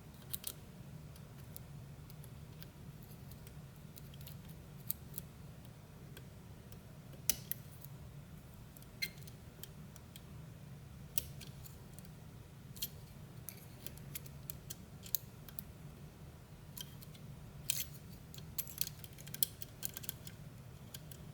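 Faint, irregular metallic clicks and ticks of a hook pick and tension wrench working the levers of a Fichet 450 high-security lever lock, a few scattered clicks every second or so over a low steady hum.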